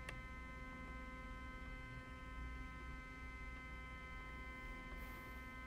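Faint steady electrical hum with a thin, high whine made of several steady tones.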